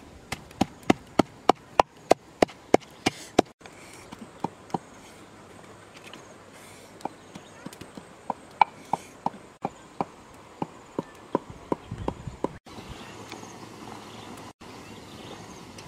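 Sharp knocks, a quick, even run of about three a second for the first few seconds, then slower and irregular.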